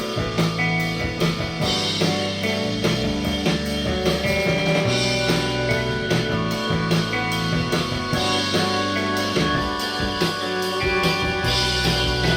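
Instrumental rock music with guitar, bass and a steady drum-kit beat, played through active desktop speakers and picked up by binaural microphones at the listening position.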